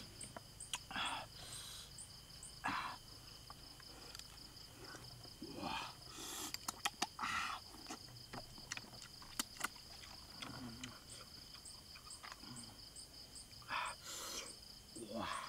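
A person eating cooked snails: short mouth sounds every few seconds and clusters of small sharp clicks as the meat is picked from the shells with a bamboo skewer. Night insects chirp steadily in the background, one high continuous trill and another pulsing several times a second.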